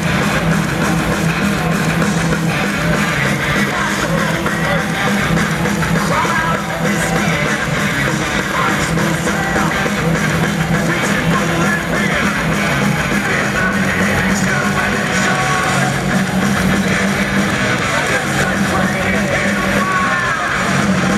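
Rock music with guitar and some singing, played loudly over an ice-hockey arena's public-address system.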